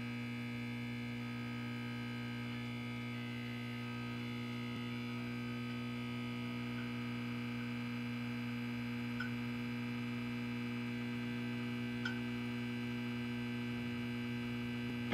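Steady electrical hum: several steady tones stacked together, shifting slightly a couple of seconds in, with two faint clicks later on.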